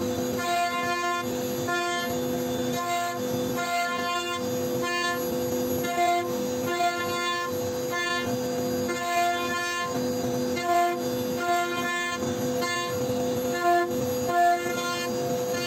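CNC router spindle whining steadily as the bit carves wood, with background music playing over it.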